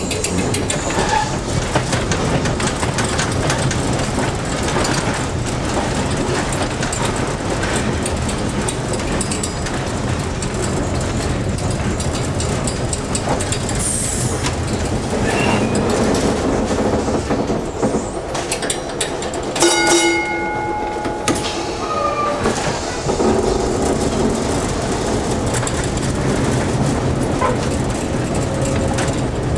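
Peter Witt streetcar running along the track, heard from inside the car: a steady rumble and clatter of wheels over the rails and switches. A short high squeal comes about halfway through, and a brief ringing tone about two-thirds through.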